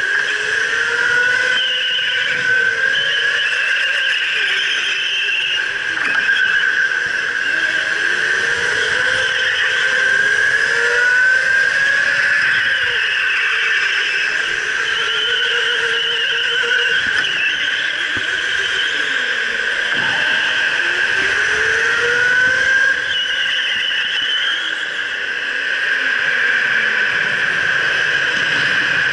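Electric go-kart motors whining at racing speed, the pitch gliding up and down every few seconds as the karts speed up out of corners and slow into them, over a steady high tone.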